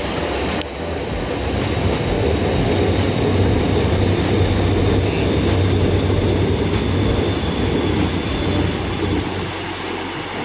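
A train passing on the overhead viaduct: a steady rumble with a low hum that swells over the first few seconds and fades away near the end, with a thin high whine in the middle.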